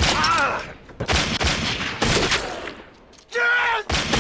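Gunfire from a TV drama's soundtrack: three loud bursts of shots about a second apart, each trailing off in echo, then a brief pitched wail near the end.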